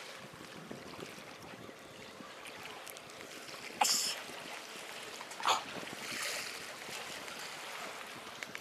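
Sea water lapping and splashing against a breakwater's concrete tetrapods, the splashing a little louder in the second half. A short sharp rustle about four seconds in and a click a second and a half later.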